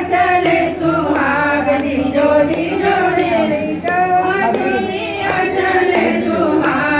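A group of women singing a devotional song together, several voices overlapping.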